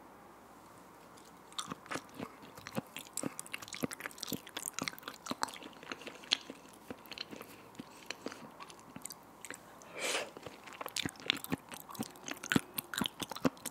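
Close-miked wet chewing of raw salmon sashimi: a dense run of small mouth clicks and smacks that starts about a second and a half in, with a longer squelch near the end.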